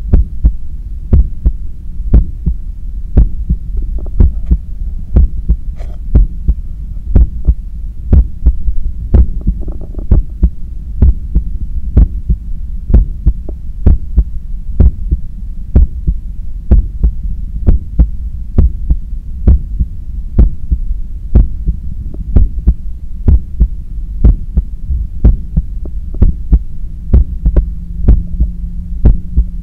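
Human heart beating hard as it recovers from a 10 km run, heard close up as steady, regular beats over a continuous low hum.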